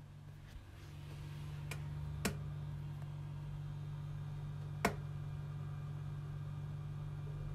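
Corsair H55 all-in-one liquid CPU cooler running at idle inside a closed PC case: a steady low buzzing hum, the buzz the owner has noticed from this cooler. Two sharp clicks stand out, one a couple of seconds in and another near the middle.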